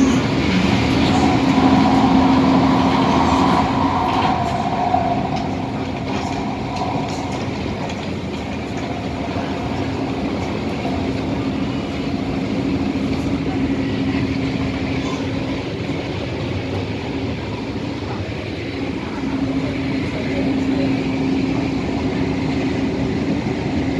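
MTR Tung Chung Line A-Train running at speed, heard from inside the car: a continuous rumble of wheels on the track with a steady hum. The train is loudest in the first few seconds, where a higher whine rides over it, then it settles to an even running noise.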